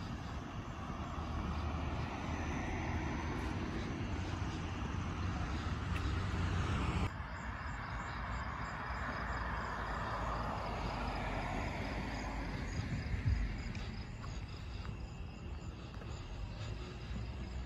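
Cars passing on a road: tyre and engine noise swells and fades twice over a steady low traffic rumble, with a short thump about three quarters of the way through.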